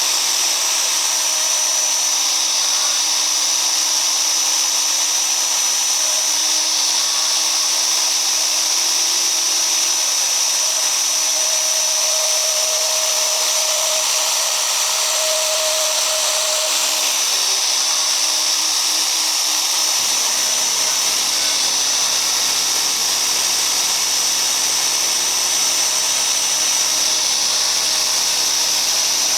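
ASIMA AR 1200 CNC router spindle running steadily with a high whine as its bit cuts a base board for a cutting die. A low rumble comes in about twenty seconds in.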